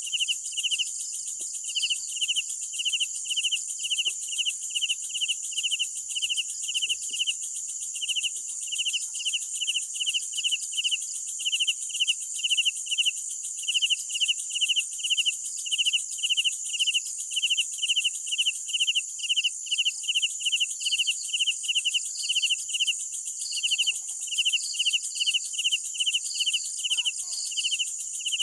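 Crickets chirping in an even rhythm, about two to three chirps a second, over a continuous high-pitched insect trill.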